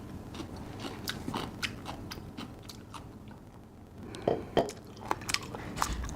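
A person chewing and biting crunchy food close to the microphone, a run of sharp crunches throughout, the loudest pair a little over four seconds in.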